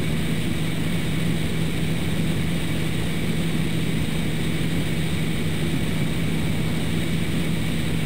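Extra 300L's six-cylinder Lycoming engine and propeller running steadily in cruise, heard from inside the cockpit as an even hum with a constant low tone.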